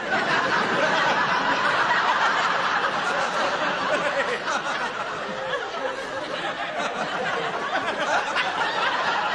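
Studio audience laughing loudly, breaking out suddenly and lasting about nine seconds, with the two men on stage laughing along.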